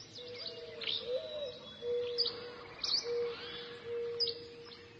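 Birds chirping and calling: many short, quick, high chirps over a lower steady whistled note that stops and starts several times.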